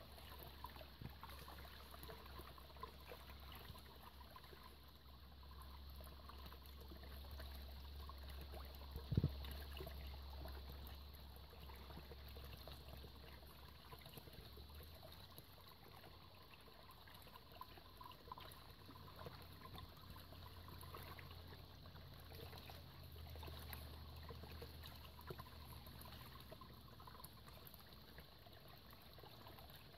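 Small shallow forest stream trickling faintly over stones, with a low rumble underneath. A single sharp knock sounds about a third of the way through.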